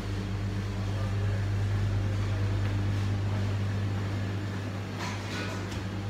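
Steady low mechanical hum, as of a running motor or engine, holding one pitch throughout.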